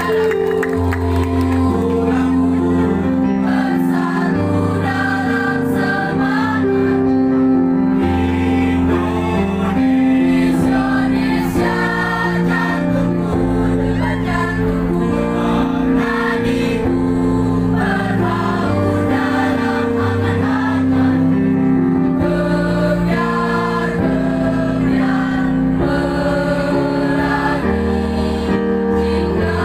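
Mixed high-school choir of boys and girls singing in parts, holding sustained chords under a conductor.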